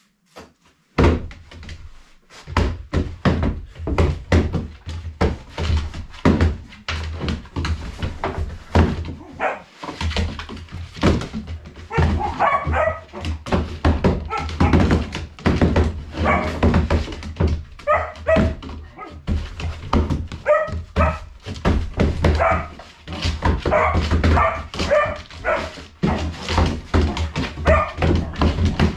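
A dog playing rough with a person on a plywood floor deck: fast, irregular thumps and scrabbling of paws and bodies on the plywood, with short yips and barks from about twelve seconds in.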